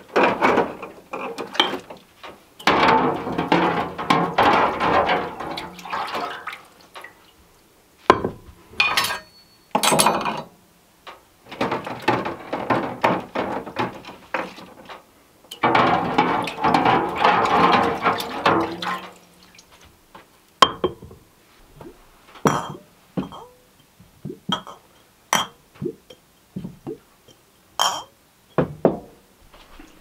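Water poured from a bottle into a steaming pot on a wood stove, in four pours of a few seconds each. For the last ten seconds, only light clinks and knocks.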